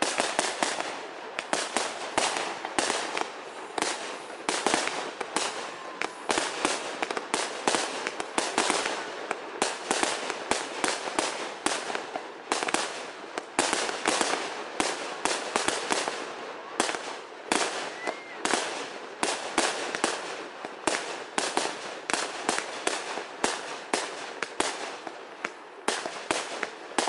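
Fireworks display: a rapid, continuous barrage of aerial shells bursting, several bangs a second with no pause.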